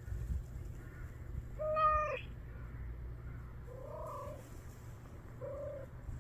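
A tortoiseshell cat meows three times: a longer, louder meow rising at its end about two seconds in, then two shorter, softer meows.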